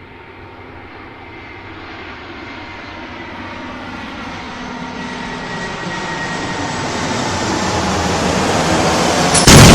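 Jet airliner approaching and getting steadily louder, its engine noise carrying a high whine that drops slightly in pitch. About nine and a half seconds in, a sudden loud crash impact cuts in: the airliner hitting the ground.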